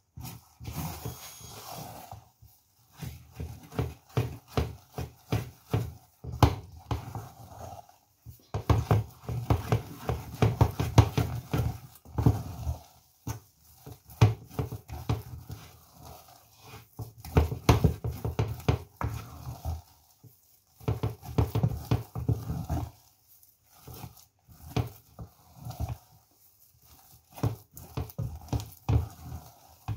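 Wooden spatula stirring and working thick potato-and-oat fufu dough in a nonstick saucepan. The strokes are rapid and come in bursts of a few seconds with short pauses between, as the dough is beaten smooth.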